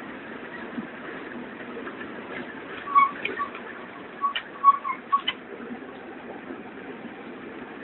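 A run of short whistled notes at one pitch, about seven in a couple of seconds, heard over a steady background noise.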